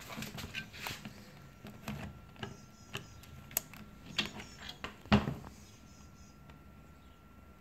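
A Canon speedlite being slid onto the freshly repaired hot shoe of a Canon 5D Mark III: plastic and metal scraping and a run of small clicks as the flash foot is worked into the shoe, with one louder knock about five seconds in. After that it goes quiet.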